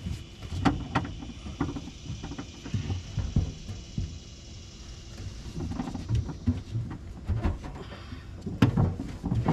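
Irregular knocks, clunks and scrapes of a fuel tank, its mounting straps and tools being handled while the tank is fitted under a car, with a sharper knock about a second in and another near the end.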